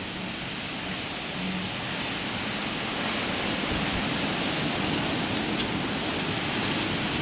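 Heavy downpour with strong wind: a steady rushing noise that grows louder over the first three seconds, then holds.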